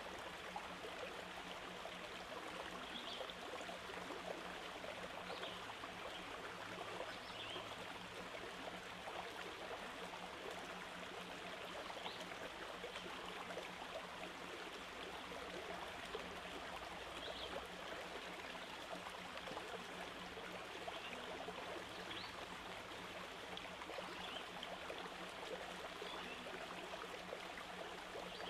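A steady rushing hiss with a faint low hum, and a short faint high chirp every few seconds.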